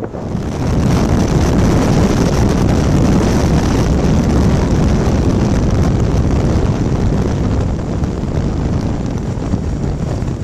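Motorcycle riding at road speed, with steady wind rushing over the microphone, growing louder about half a second in.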